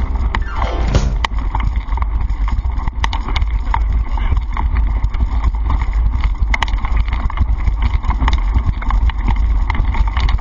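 Bike-mounted camera rattling along a rough dirt track: a steady low rumble of wind and vibration with irregular clicks and knocks.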